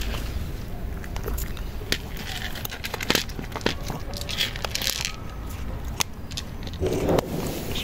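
Cat crunching dry kibble: a run of sharp cracks and clicks as it chews, with a brief louder noise near the end.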